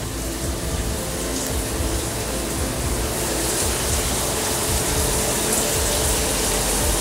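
Shower running: a steady hiss of spraying water behind the shower curtain.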